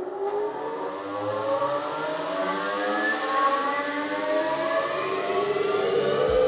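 Rug-washing centrifuge spinning up from a start: a whine of several tones that rises together in pitch and grows louder, levelling off near the end.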